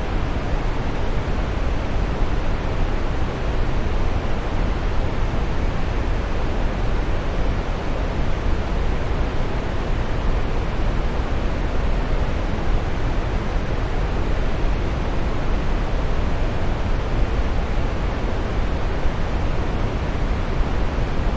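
Waterfall: a steady, even rush of falling water, deepest in the low end.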